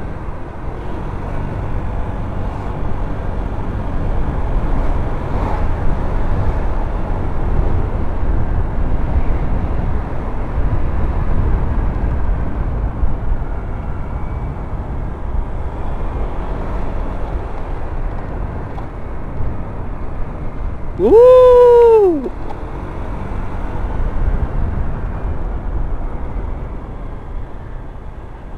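Wind rush and the engine of a Honda Vario 125 single-cylinder scooter while riding along. About 21 seconds in, a loud pitched tone lasting about a second rises, holds and falls.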